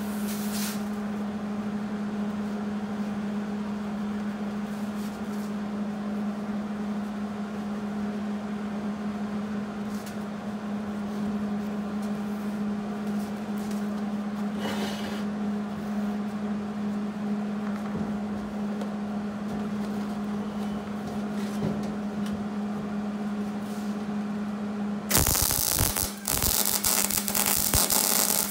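Steady low hum, then about 25 seconds in a MIG welder's arc strikes and crackles loudly on steel, breaking off briefly and starting again.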